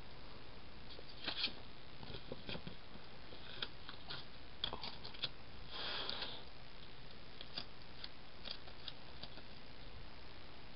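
Quiet paper handling: light ticks and taps as the planner pages and a paper sticker are handled, with a brief rustle about six seconds in as a full-box sticker comes off its sheet and is pressed onto the page.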